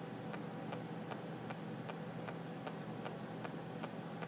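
Faint, regular ticking, about three ticks a second, over a steady low hum.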